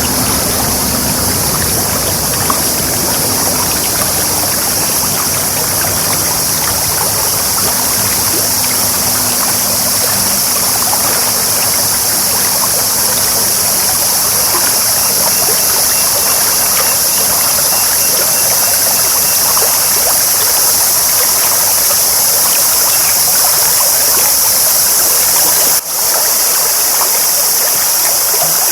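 Clear stream babbling, a steady rush of running water. It drops out for an instant near the end.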